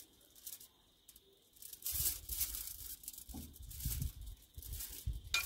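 A roast lamb leg being pushed off a rotisserie spit with a knife onto aluminium foil: irregular scraping and rustling, starting about two seconds in.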